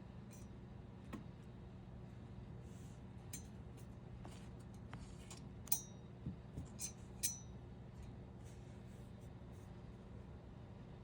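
Steady low room hum with a cluster of five or six light clicks and ticks about halfway through, the first the sharpest.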